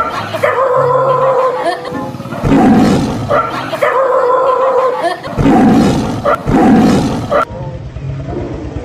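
Recorded lion roars, repeating about every three seconds, alternating with a dog's long, steady-pitched cries.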